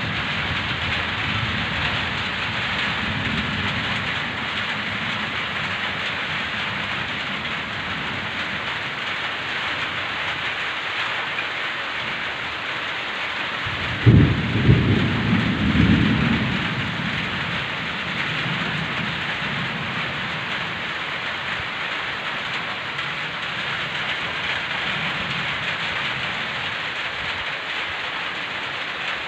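Heavy rain hissing steadily, with low thunder rumbling in the background. About halfway through a sudden thunderclap breaks out and rumbles on for two or three seconds.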